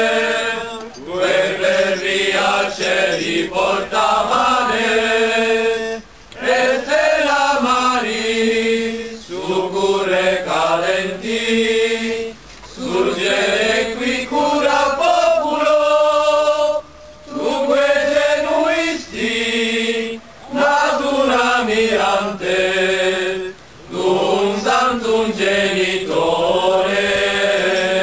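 Voices singing a slow, chant-like hymn in long held phrases, with short pauses between phrases every few seconds.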